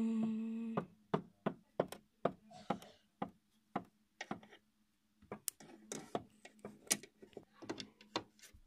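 A toy figure's feet tapped on a dollhouse floor as footsteps: a long run of irregular light taps and knocks, about two to four a second, closer together in the second half.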